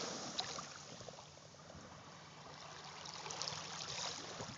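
Faint, steady trickling and lapping of shallow water at the shoreline.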